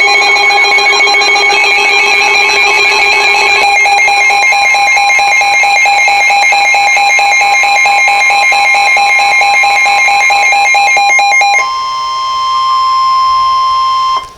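Emergency Alert System alert tones: a loud, steady electronic alarm for about eleven seconds, then a change to a different steady tone that cuts off abruptly, just ahead of a severe thunderstorm warning.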